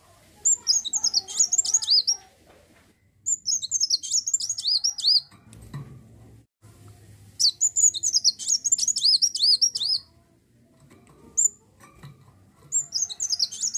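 Kolibri wulung sunbird singing in four bursts of rapid, high chirping notes, each about two seconds long, with pauses between them and a single short note in one of the gaps.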